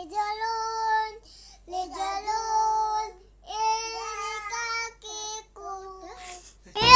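A young child singing unaccompanied in short phrases of held notes with brief pauses between them. Loud background music comes in just before the end.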